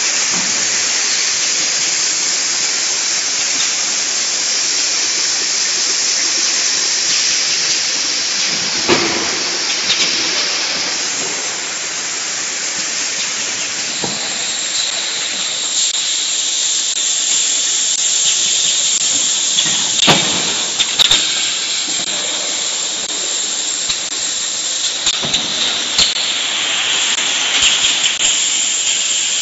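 Edible oil filling line and bottle conveyor running: a steady loud hiss, with scattered clicks and knocks from about nine seconds in, and a steady high whine joining around the middle.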